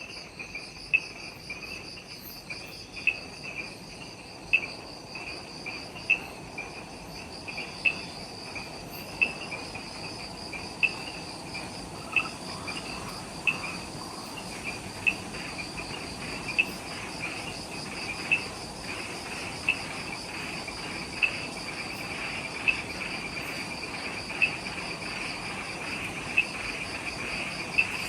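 Chorus of forest insects with a steady, high, fast-pulsing trill, and a sharp, louder chirp about every second and a half from one nearby insect.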